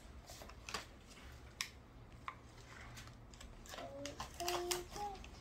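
Soft, scattered clicks and taps of a plastic rice paddle pressing and spreading cooked rice over a sheet of nori on a bamboo rolling mat. A high voice sounds briefly near the end, louder than the clicks.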